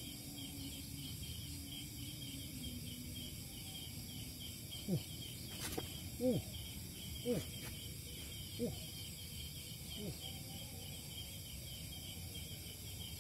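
Crickets chirping steadily in rapid, even pulses. About five short, louder sounds slide quickly downward in pitch partway through.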